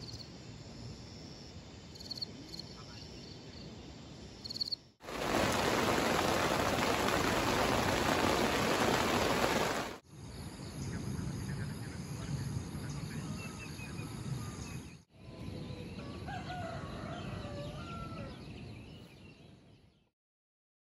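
Outdoor ambience in short segments cut together, each about five seconds long. The first is faint, with short high repeated chirps. The second is a loud, steady rushing noise. The third has a few bird chirps. The fourth has wavering rooster-like crowing calls before a fade-out.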